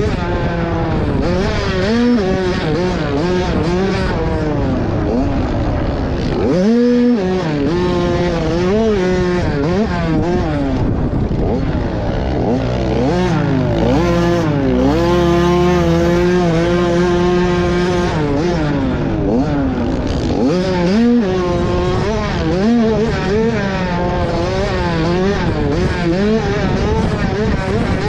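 Dirt bike engine heard close up while riding a motocross track, revving up and down over and over as the rider works through the gears, jumps and corners. Its pitch holds steadier for a few seconds around the middle before climbing again.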